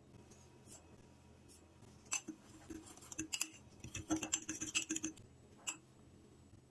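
Spoon clinking and scraping against a mug: a single knock about two seconds in, then a quick run of clicks for about two seconds, and one more knock near the end.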